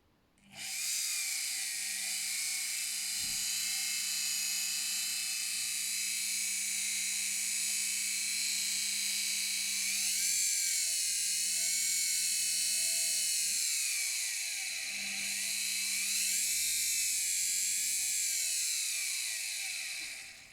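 Washing-machine electric motor running on a speed controller with a high multi-tone whine. It starts about half a second in, holds a steady pitch, then rises and falls twice as the speed is turned up and down, and cuts out near the end.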